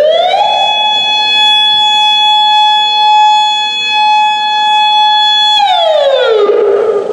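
Federal Signal Modulator 8032B electronic warning siren sounding its alert tone during a test: the pitch glides up at the start, holds one steady tone for about five seconds, then slides down near the end.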